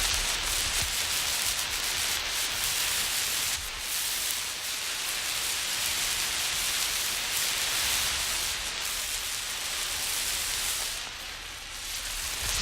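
Emergency flare burning with a steady hiss that wavers in level, dipping briefly near the end.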